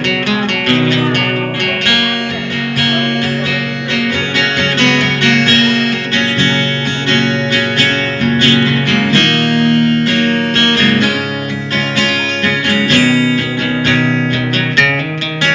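Acoustic guitar played live through PA speakers, picking and strumming an instrumental passage between the sung verses of a slow love song.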